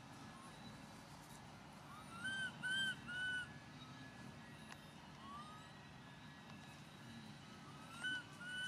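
Short, high, whistle-like animal calls, each rising and falling in pitch: three in quick succession about two seconds in, a single rising call around the middle, and two more near the end, over a steady low background hum.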